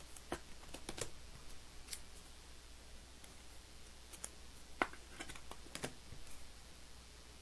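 Trading cards being handled and slid into plastic sleeves: scattered light clicks and taps, with one sharper click a little under five seconds in.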